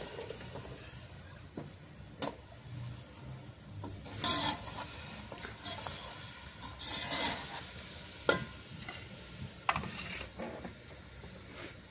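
A metal skimmer stirring raw chicken pieces into masala in a steel cooking pot: short scraping strokes against the pot and a few sharp clinks of metal on metal, with light sizzling.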